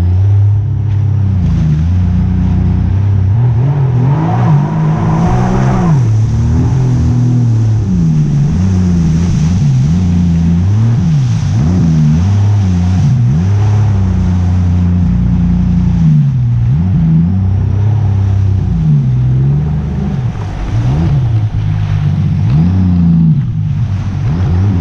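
A motor engine running close and loud, its pitch rising and falling again and again through the whole stretch.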